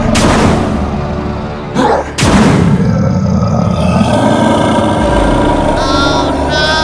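Background music with cartoon boom sound effects: two heavy impacts about two seconds apart near the start, then a wavering electronic effect near the end.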